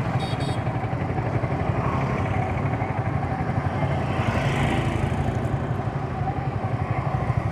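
Yamaha R15 V3's 155 cc single-cylinder engine idling steadily with an even low pulse, amid street traffic. A vehicle passing close by swells up about four seconds in.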